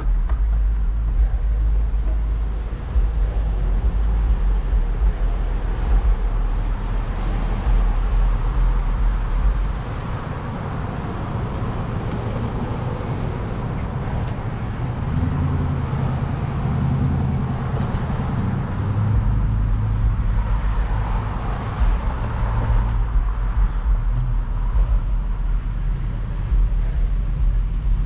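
Wind buffeting the microphone and road noise while riding a 750 W fat-tire electric bike. The low wind rumble eases for several seconds in the middle, letting a steadier hum come through, then returns.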